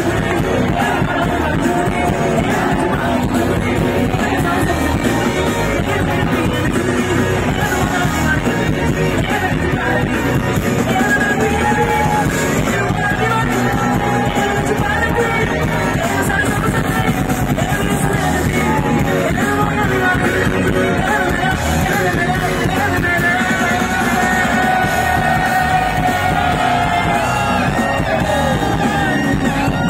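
Live rock band playing loud through a concert PA, with electric guitar and drums under a male voice singing.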